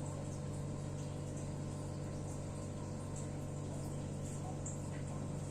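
Steady low hum with a faint hiss under it; no distinct event.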